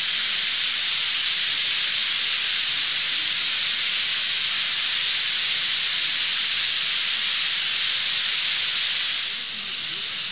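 Massed chattering of a huge brambling flock at its winter roost, blending into a dense, steady hiss; it turns a little quieter just over nine seconds in.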